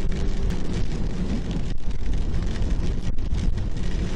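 Steady wind rushing over the microphone of a motorcycle being ridden at speed in the rain, with the Honda CB400 Super Four's inline-four engine running underneath.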